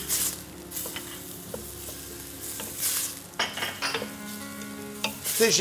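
Chopped onions sizzling as they fry in a stainless steel pan, stirred with a few brief scraping strokes.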